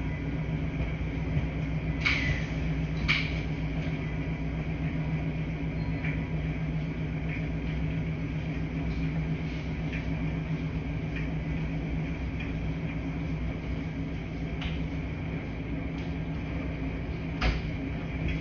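Washing machines running with a steady low hum. Occasional sharp clicks and knocks sound over it, the loudest about two and three seconds in and again near the end.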